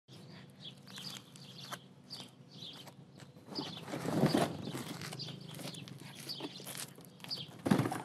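Small birds chirping, short high calls every second or so over a faint steady low hum. About four seconds in a louder noisy rush rises and falls, and near the end comes a thump as cardboard boxes are set down on pavement.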